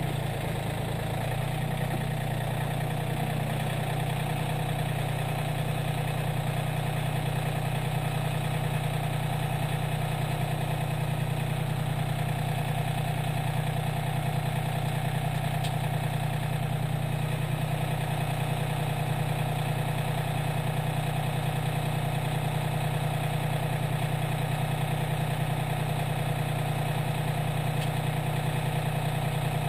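John Deere 770 compact tractor's three-cylinder diesel engine idling steadily.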